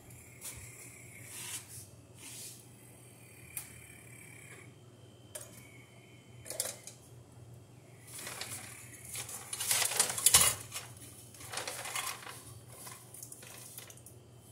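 Metal parts clinking, knocking and scraping as electrical conduit and fittings are handled. Scattered clicks give way to a louder burst of clattering about ten seconds in, then a few lighter knocks.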